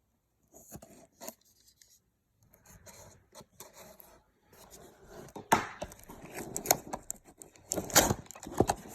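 Trading cards being handled: soft rustling and sliding of card stock, with sharp flicks and snaps as cards are pushed past one another. It starts sparse and quiet and gets busier and louder in the second half.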